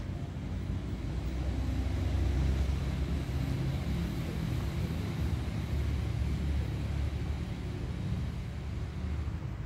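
A steady low rumble with no distinct events, a little louder about two to three seconds in.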